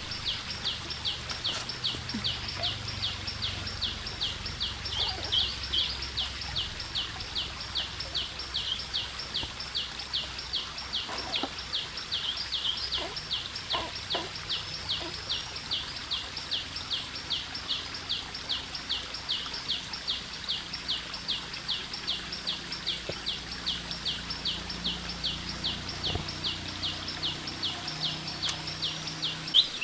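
Rhythmic high chirping, about three short chirps a second kept up without a break, growing louder near the end.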